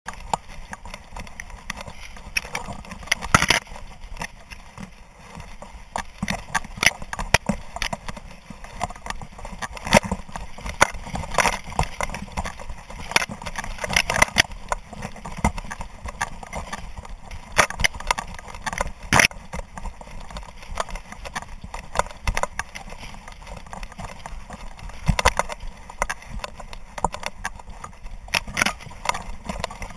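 Camera mounted on a running dog's back, jostling: irregular knocks and rattles of the mount and collar, with dry grass and stalks swishing against it, a few sharp, louder knocks standing out.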